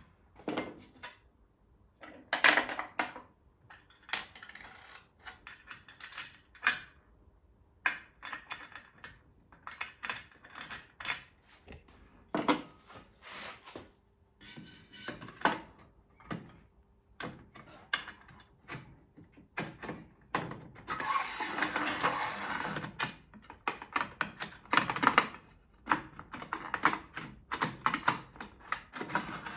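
Irregular mechanical clicks, knocks and rattles of parts of a table saw being handled and fitted during assembly, with a longer stretch of rubbing and scraping about two-thirds of the way in.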